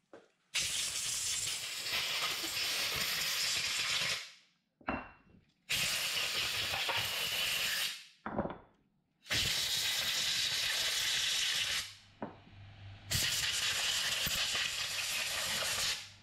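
Compressed-air blow gun hissing in four long blasts of about three seconds each, with a couple of short puffs between them, blowing oil pump parts dry after brake cleaner.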